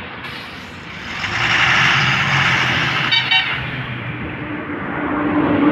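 Tipper dump truck's engine running as its raised bed unloads soil, with a loud rushing hiss from about one to four seconds in as the load slides out. There is a short horn toot about three seconds in, and the engine note grows louder near the end.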